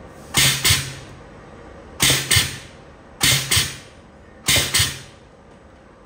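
Fibre-optic connector crimping machine cycling four times, crimping the connector's crimp ring onto the cable jacket and Kevlar. Each cycle is a pair of sharp hissing bursts about a third of a second apart, with a low hum under the first, and the cycles come about every second and a quarter.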